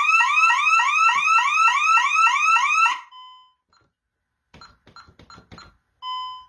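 Siren of a Honeywell Vista 15P home alarm going off in rapid rising sweeps, about four a second, a burglary alarm set off because the front door's entry delay ran out. It cuts off abruptly about three seconds in as the system is disarmed, followed by a short beep, a quick run of soft clicks and another short beep.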